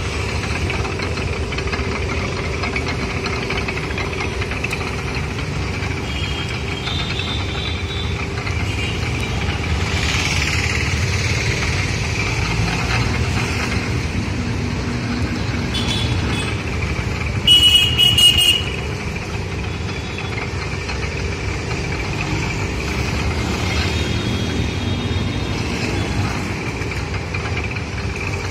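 Belt-driven sugarcane juice crusher running steadily while crushing cane, a continuous low mechanical rumble. About two-thirds of the way through, a vehicle horn honks briefly and is the loudest sound.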